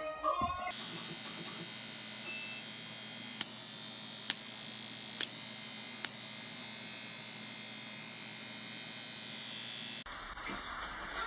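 Four sharp clicks about a second apart over a steady hiss, as a cat paws at a wireless computer mouse.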